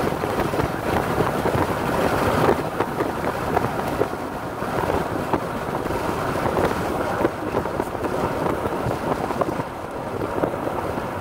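Strong wind buffeting the microphone: a continuous rough rushing noise, crackling with gusts.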